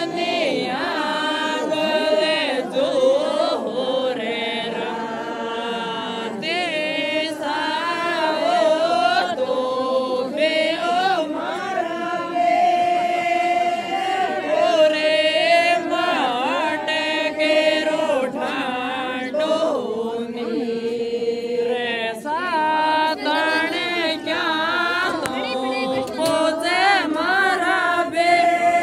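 Voices singing a Rajasthani mayra folk song together, in long held, wavering notes.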